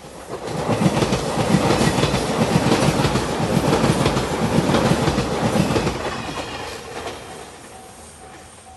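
JR Shikoku 8000-series Shiokaze electric limited express, five cars, passing close by: a loud rumble with wheels clattering over the rail joints that swells in within the first second, holds until about six seconds in, then fades away. A level-crossing warning bell rings on steadily underneath and comes through again as the train dies away.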